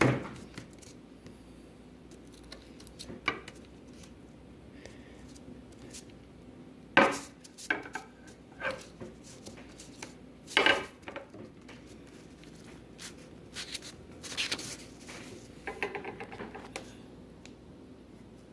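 Metal flat bar clinking and knocking as it is worked to break it off along a line scored with tin snips: scattered sharp metallic clicks, the loudest two about 7 and 11 seconds in, and a brief ringing rattle near the end.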